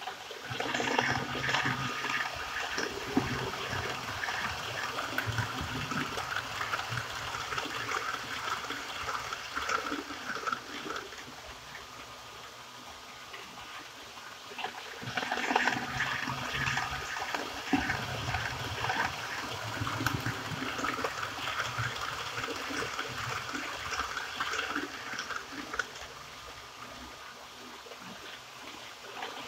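HO-scale model train, an FS E444 electric locomotive hauling coaches, running along the layout's track with a continuous rattle and rumble of wheels on rail. It swells twice, from about a second in and again from about the middle, and dips in between.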